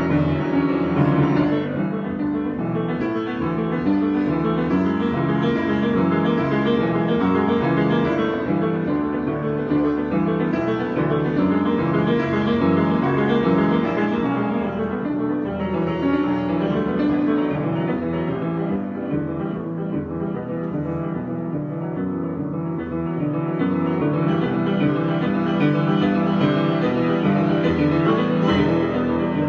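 Piano improvisation, played continuously with many overlapping notes, easing off a little about two-thirds of the way through.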